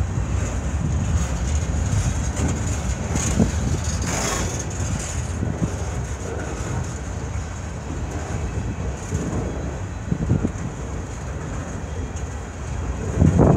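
Freight cars of a CN freight train rolling past: a steady rumble of steel wheels on rail with a few short knocks as wheels pass over rail joints, and a louder surge near the end.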